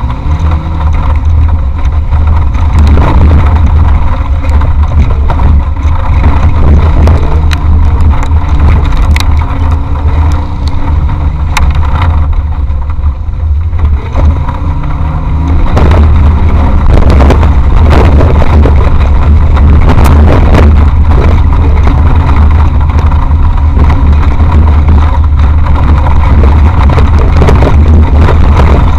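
Off-road race vehicle's engine running hard, picked up loud and distorted by an action camera mounted on the vehicle, with a heavy low rumble and repeated knocks and rattles from the rough ground. The engine revs climb a little past halfway through.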